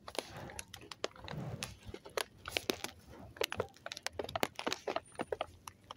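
Paper coffee bag crinkling and crunching as it is gripped and handled: a run of irregular sharp crackles.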